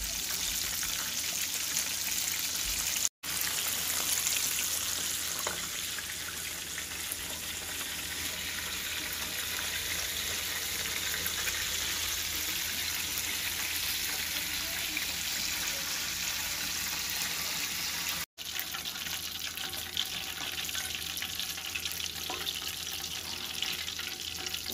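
Battered chicken pieces deep-frying in a pan of hot oil: a steady sizzle that cuts out for an instant twice.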